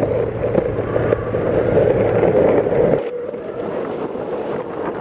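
Skateboard wheels rolling along at speed, a steady loud rumble and hum, with wind on the microphone; the low rumble drops away suddenly about three seconds in.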